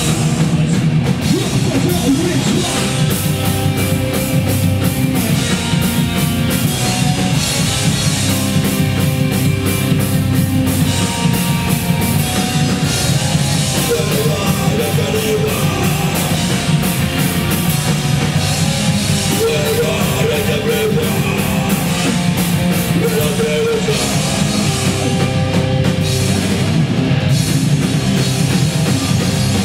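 Crust hardcore punk band playing live: heavily distorted guitars, bass and fast drums with crashing cymbals, loud and unbroken throughout.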